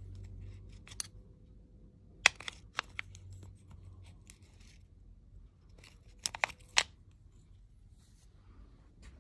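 A handful of sharp clicks and light taps: one just after a second in, a cluster of three or four about two to three seconds in, and another cluster about six to seven seconds in, over a faint low hum.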